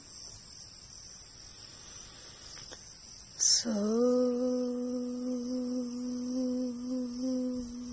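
A steady, high-pitched insect chorus. About halfway through, a low note starts with a short downward slide and is then held long and steady, like a hummed or chanted tone.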